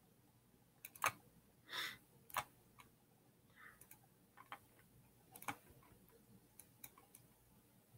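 Faint, irregularly spaced clicks and taps, about a dozen, from the drawing input while a line is drawn on a computer whiteboard, with one softer brushing sound about two seconds in.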